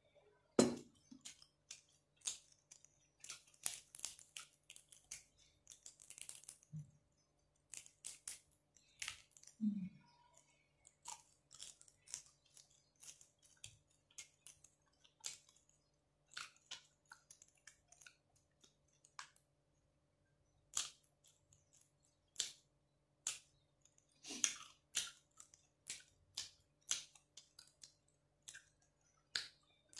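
Close-miked chewing and wet mouth clicks of someone eating rice, fried tilapia and bamboo shoots by hand, irregular and continual, with a louder knock about half a second in.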